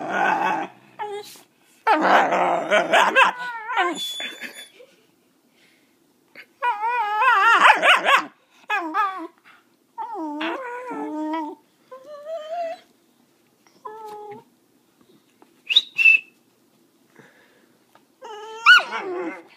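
A puppy "singing" on command: drawn-out howls with a wavering, warbling pitch, with a couple of harsh barks early on and a short high whine later.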